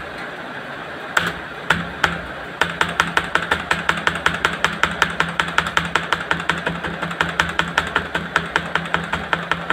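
Laptop keyboard keys being tapped: a few separate taps in the first two seconds, then an even run of taps at about five or six a second from under three seconds in, over a steady low hum.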